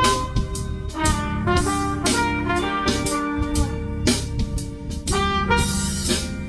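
Background music: a jazz-style tune with horn-like melody notes over a drum beat.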